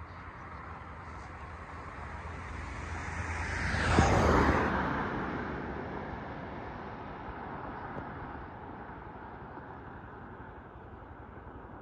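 A vehicle passes by on the road: its noise swells, peaks about four seconds in, and fades away over the next few seconds.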